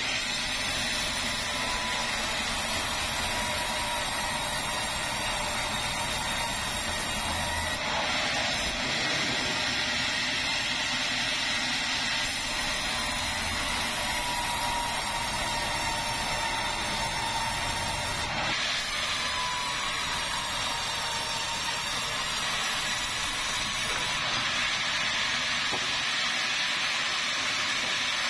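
Vertical band sawmill running steadily and sawing keruing timber: a continuous machine noise with a faint blade whine that dips in pitch a few times.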